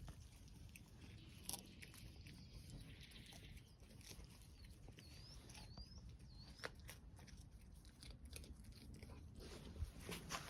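A dog chewing and crunching a treat, faint scattered crunches and clicks.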